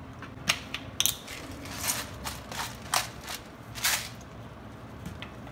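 Kitchen handling noises: a string of sharp clicks and knocks with short scrapes, about a handful in all, the sharpest about half a second and a second in.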